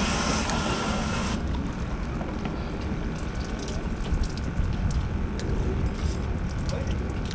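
Wind rumbling on the camera microphone over the wash of the sea below the pier, with a hiss that cuts off about a second in and faint scattered ticks after it.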